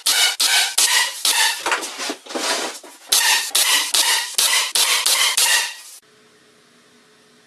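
Pneumatic nailer driving nails through a plywood top into a plywood box, fired in quick succession at about three shots a second, each a sharp crack with a short ring. The shots stop abruptly about six seconds in, leaving a faint low hum.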